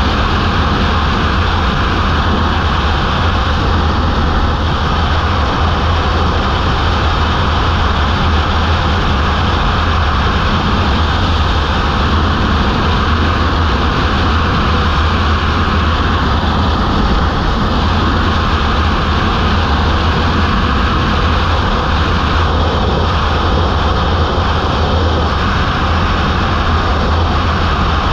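Wind rushing over the microphone together with a Kawasaki Ninja ZX-10R's inline-four engine running at a steady highway cruise. The rush is loud and even throughout, with a heavy low rumble from the wind buffeting.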